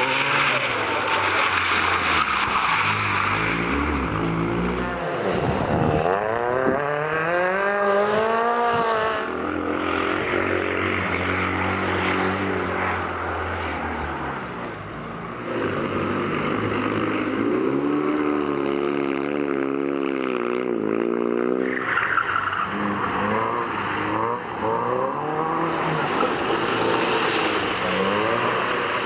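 Small rally cars (a Peugeot 106, a Fiat 126p and an Opel Corsa) take turns running hard through tight turns, engines revving up and down with rising and falling pitch, and tyres skidding on wet tarmac.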